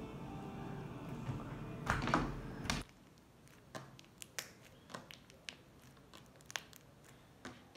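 Slime being squeezed and stretched by hand, making a scattered string of small sharp clicks and pops. A louder steady background sound cuts off suddenly about three seconds in.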